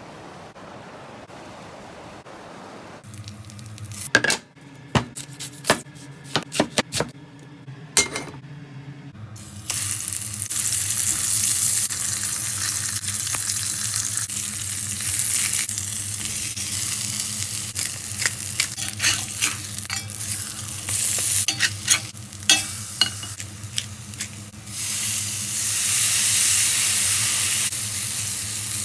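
Food frying and sizzling in a hot pan, with the clicks and scrapes of a utensil stirring it. A few sharp knocks come first; the sizzling starts about a third of the way in and gets louder again near the end.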